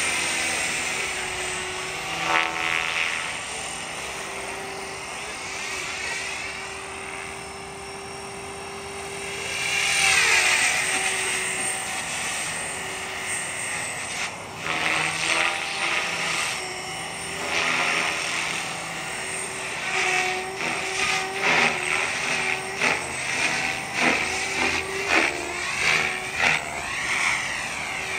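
Mikado Logo 480 electric RC helicopter in flight: a steady motor and drivetrain whine under the rotor noise, swelling about ten seconds in. From about twenty seconds on comes a quick series of louder blade whooshes as it flies 3D manoeuvres.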